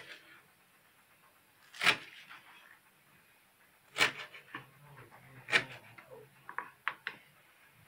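Kitchen knife cutting through a bunch of dill on a plastic cutting board: four separate cuts about two seconds apart, then several lighter taps near the end.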